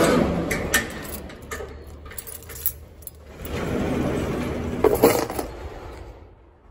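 A bunch of keys jangling and clinking against a padlock as it is unlocked, with sharp metallic clicks in the first second or so. About three and a half seconds in comes a longer, louder noise with a clank near five seconds, then it fades.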